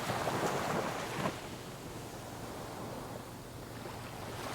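Steady wind and sea noise on a sailing yacht under way: a faint, even rush of wind and water with no engine.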